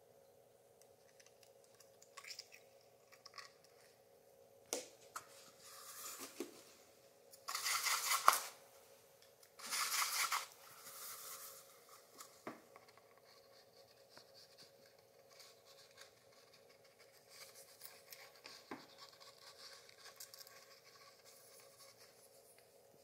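Sand art being made in a glass frame: a thin stream of sand poured from folded paper hissing faintly, with light scratching and a few sharp clicks of handling. Two louder rushes of hiss, each about a second long, come near the middle.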